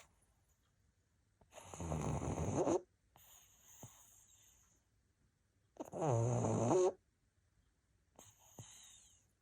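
Pug snoring in its sleep: two loud snores about four seconds apart, each followed by a softer breath out.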